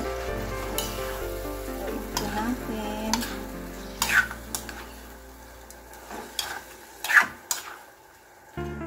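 A spatula stirring and scraping chicken and vegetables in a metal wok as they fry, with several sharp scrapes against the pan from about four seconds in.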